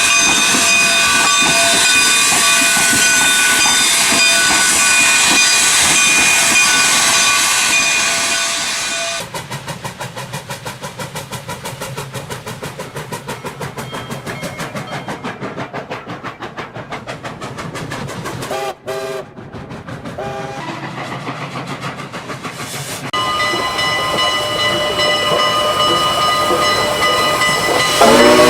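Steam locomotive sound effects: a loud steady hiss of steam with ringing tones, then the engine running with a quick even beat of about three or four pulses a second, two short whistle toots, more steam hissing, and a loud whistle that slides up in pitch at the very end.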